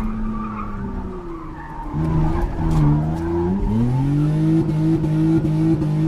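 Car engine pulling hard under acceleration, heard from inside the cabin. It gets louder about two seconds in, its pitch dips at a gear change about three and a half seconds in, then climbs and holds high.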